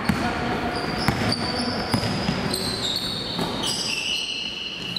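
Basketball dribbled on a hardwood gym floor, about four bounces in the first half, with high sneaker squeaks on the court later on.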